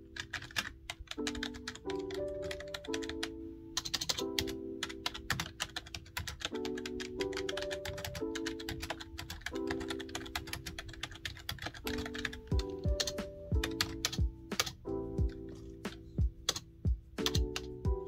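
Continuous fast typing on a backlit computer keyboard, a dense run of key clicks, over background music with a melody. A steady low beat joins the music about two-thirds of the way through.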